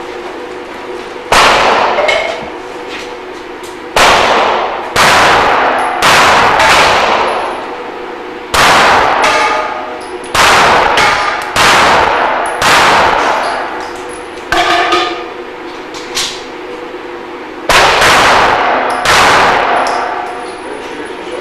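Loud metallic clangs of steel targets, a dozen or so sudden strikes spaced a second or two apart, each ringing out and fading over about a second. This fits the steel being set back up after the stage.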